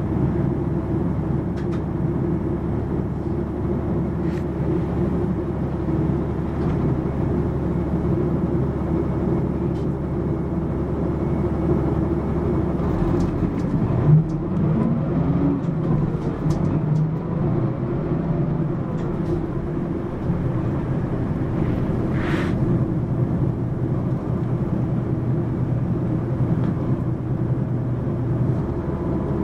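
Mitsubishi Fuso PA-MK25FJ city bus's diesel engine and running noise. About halfway through the steady low drone changes and the engine pitch rises as it pulls harder, with a small knock, and a few seconds later comes a short hiss of released air.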